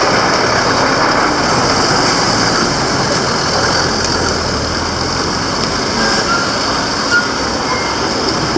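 Street traffic: a steady noise of vehicle engines and tyres going by close at hand, with a few brief high tones late on.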